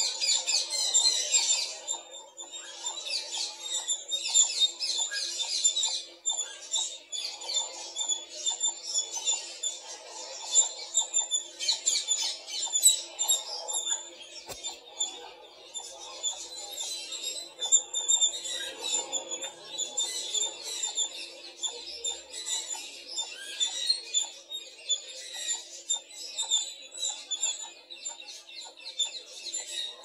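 Wild birds chirping and calling densely and continuously, many quick high notes overlapping, over a faint steady hum.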